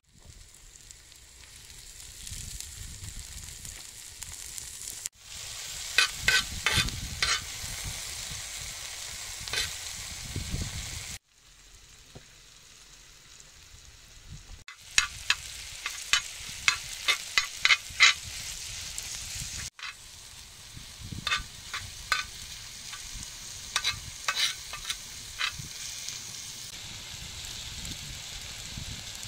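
Diced vegetables and ground meat sizzling in a large shallow steel pan over a wood fire, with runs of sharp clicks and scrapes from a spatula stirring against the metal. The sizzle cuts off abruptly several times where the footage is edited.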